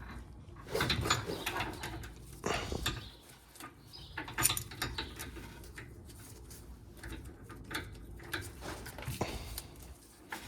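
Scattered metallic clinks and knocks of an inner tie rod removal tool being handled and fitted onto the tie rod, with short pauses between them.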